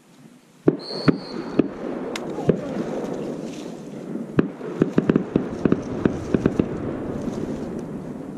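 Dry brush and leaves crackling and rustling close to the microphone, with a string of sharp irregular clicks and knocks, starting suddenly under a second in.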